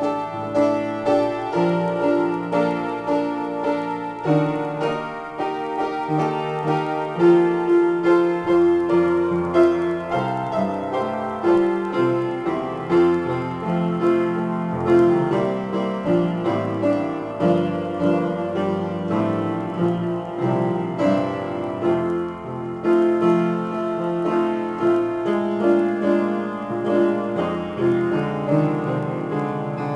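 Solo grand piano improvisation: a continuous flow of struck notes and chords over a moving bass line.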